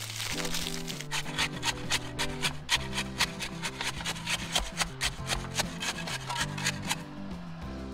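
Rapid, regular scraping strokes, about four a second, of a hand tool stirring wet fast-setting concrete in a post hole; they stop about seven seconds in. Background music plays underneath.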